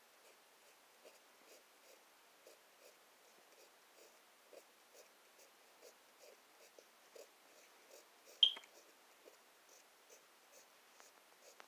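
Faint pencil scratching on lined notebook paper in short strokes as a figure is sketched. About two-thirds of the way through there is one brief, louder high-pitched squeak or click.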